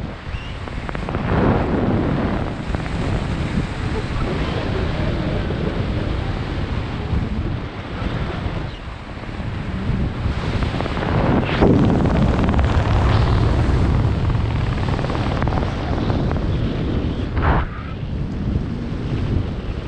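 Airflow buffeting a helmet camera's microphone under an open parachute canopy: a steady rushing with louder gusts about a second in, near the middle and near the end.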